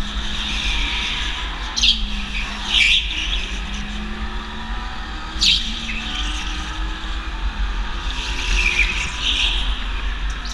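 Go-kart running hard around an indoor track, heard from the driver's seat: a steady low rumble and motor tone, with short high-pitched tyre squeals through the corners several times.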